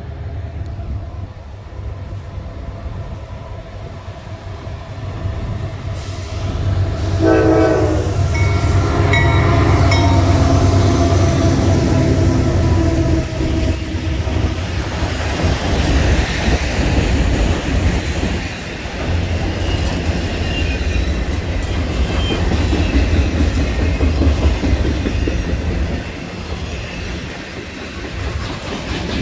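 Diesel freight train approaching and passing: the locomotives' low rumble grows louder, the horn sounds about seven seconds in, and then freight cars roll by with a steady clatter of wheels on rail.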